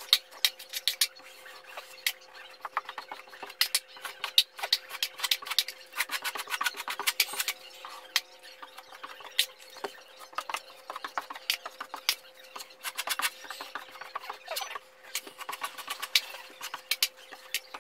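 Metal taping knife scraping against a mud pan and spreading joint compound on drywall, heard as a fast, irregular run of scrapes and clicks because the audio is time-accelerated. A steady faint hum sits underneath.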